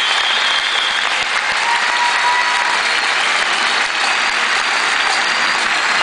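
Audience applauding steadily as the player makes his entrance.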